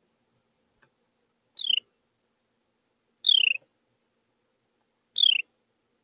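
Carolina wren calling three times, about two seconds apart, each call a short note sliding down in pitch.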